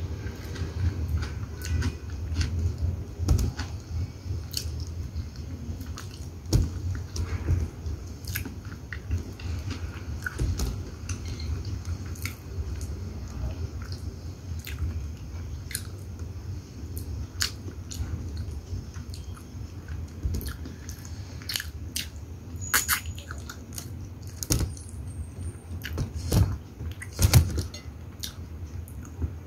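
A person chewing chicken liver and gizzard adobo, eaten by hand, with many small scattered mouth clicks and taps throughout, the loudest near the end.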